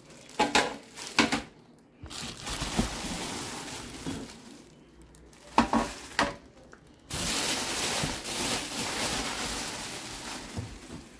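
Clear plastic packaging bags rustling and crinkling while wrapped pans are handled in a cardboard box, in two long spells, with a few sharp knocks in the first second and another about halfway through.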